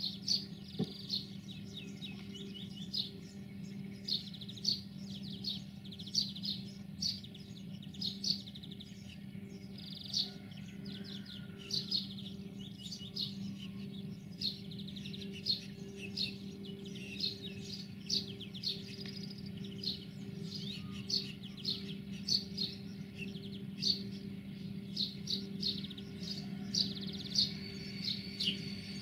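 Small birds chirping in quick, repeated calls over a steady low drone from the Sulzer diesel engine of an LDE2100 (060-DA) diesel-electric locomotive running slowly during shunting.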